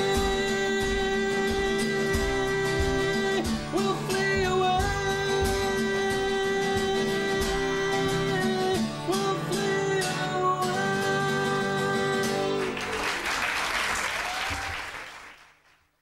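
A man singing long held notes over a strummed acoustic guitar, closing a worship song. About thirteen seconds in the music gives way to audience applause, which fades out before the end.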